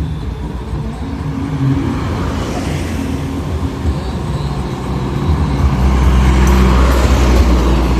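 A heavy parade vehicle going past close by. Its deep low rumble builds about five seconds in and is loudest around six to seven seconds in.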